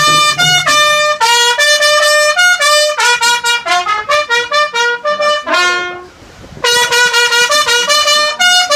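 Trumpet playing a quick melodic phrase of short notes, with a pause about six seconds in before the playing resumes.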